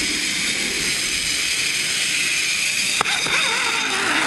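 Zipline trolley's pulley wheels running fast along the steel cable: a steady whirring hiss with a high whine, mixed with wind rushing past. A sharp click about three seconds in.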